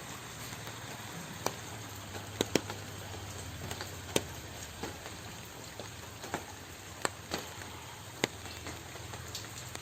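Water in a fish tank stirred by a hand net: scattered sharp drips and small splashes over a steady hiss and low hum.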